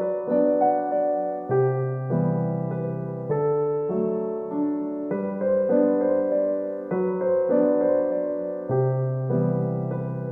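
Gentle background piano music, slow chords changing about every second or two.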